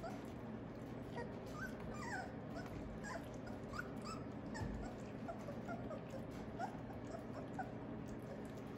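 Three-week-old Australian Labradoodle puppies whimpering, with many short, high squeaks that rise or fall in pitch, scattered across the whole time. Faint small clicks from the puppies eating mushy food at the pan run underneath.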